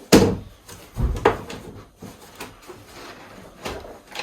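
A few knocks and clatters of tools and their cases being handled and set down. There is a sharp knock at the start, two more about a second in, and lighter ones after that.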